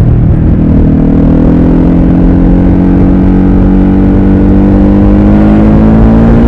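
Ducati Supersport S's 937 cc L-twin engine pulling under load, its revs rising slowly and steadily in one gear, with wind buffeting the microphone.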